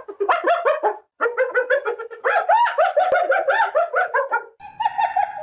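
Hyena giggling: a fast series of short, high calls that rise and fall, broken by brief pauses. Near the end it turns into a steadier held note.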